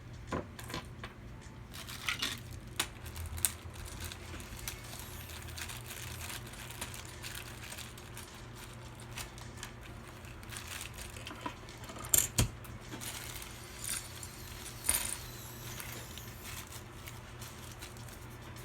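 Small hard parts being handled: scattered light clicks and taps with a little metallic clatter over a steady low hum, and a couple of sharper clicks about two-thirds of the way through.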